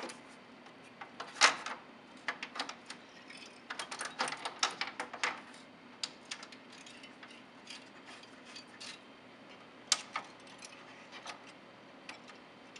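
Scattered sharp clicks and light knocks of a circuit board and its mounting hardware being handled in an Andover Controls AC256M controller panel: a loud click about a second and a half in, a quick run of clicks around four to five seconds, and another near ten seconds, over a faint steady hum.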